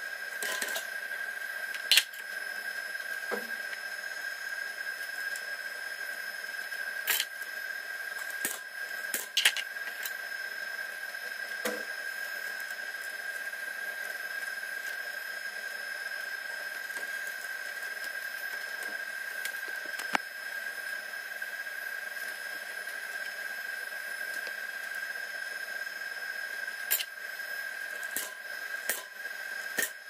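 Scattered sharp clicks and knocks from hands working network cable at a patch panel, the loudest about two seconds in, over a steady high-pitched whine.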